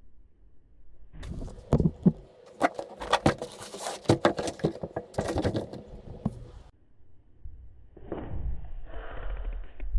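Handling noises from unboxing: a dense run of clicks, knocks and rustles for several seconds, then a softer rustle near the end.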